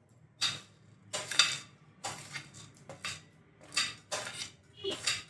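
A spoon and small dishes clinking and rattling as whole spices are tipped into a bowl, about six or seven short clatters in a row.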